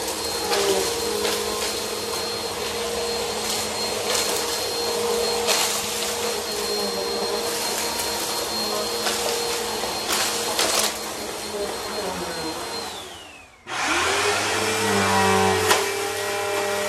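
Bissell PowerForce Helix upright vacuum running, with scattered sharp clicks of crumbs being sucked up. About thirteen seconds in, its motor winds down and stops. A second Bissell upright vacuum then starts abruptly at full speed with a steady hum.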